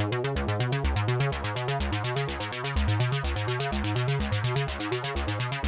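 Electronic background music: fast, evenly repeating synthesizer notes over a steady pulsing bass line.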